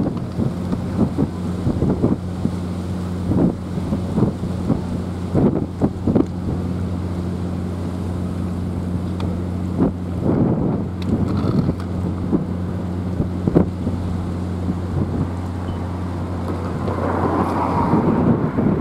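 Wind gusting against the microphone in irregular buffets over a steady low hum; a rushing noise swells near the end.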